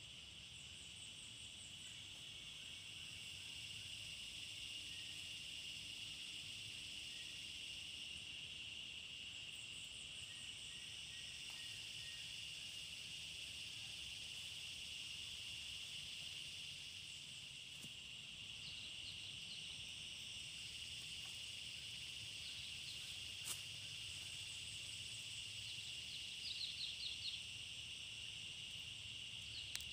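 Insect chorus: a steady, high-pitched drone that runs on without a break, with a few short rapid chirping trills over it and one sharp click about two-thirds of the way through.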